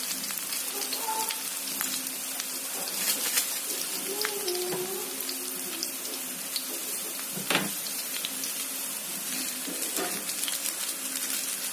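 A stir-fry of clams with shallots and chili sizzling steadily in a pan, with a couple of sharp clicks.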